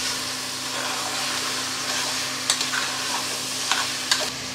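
Raw chicken pieces sizzling in hot oil in an aluminium pressure cooker while a steel spoon stirs them. In the second half there are three sharp knocks of the spoon against the pot.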